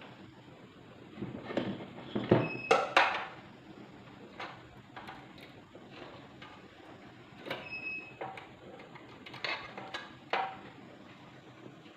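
Clicks, knocks and scraping from handling the rice cooker's parts and wiring while it is taken apart, loudest from about one and a half to three and a half seconds in.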